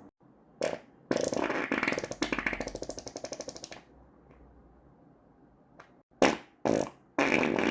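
A series of farts: a short one, then a long fluttering one lasting about two and a half seconds, then two short sharp ones in quick succession, and another long one starting near the end.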